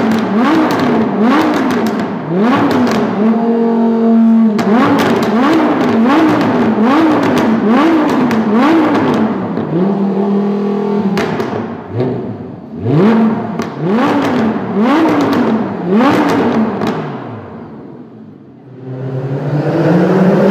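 Supercar engine being blipped over and over from idle, the pitch shooting up and falling back about once a second, with exhaust pops and crackles as the revs drop. Twice it settles briefly at a steady idle, and near the end it dies away before another rev begins.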